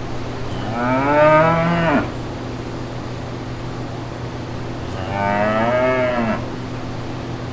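Cattle mooing: two drawn-out moos of about a second and a half each, one near the start and one about five seconds in, each rising and then falling in pitch. A steady low hum runs underneath.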